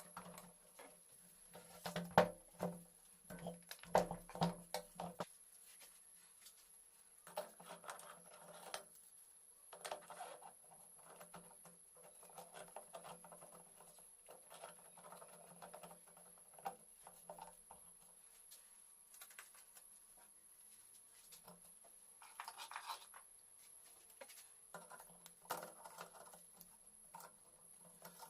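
Light metallic clicks, taps and scrapes of small engine parts and hand tools being handled, in uneven bursts. The densest run of sharp clicks comes a couple of seconds in, followed by softer scratchy handling sounds.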